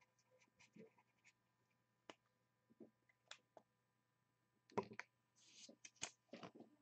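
Faint writing on a paper sticky note, short scratchy pen strokes mixed with light clicks and taps, the loudest of them about five and six seconds in.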